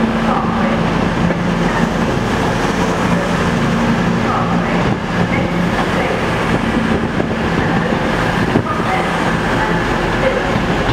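A train running with a steady low hum and the general rumble of rail noise.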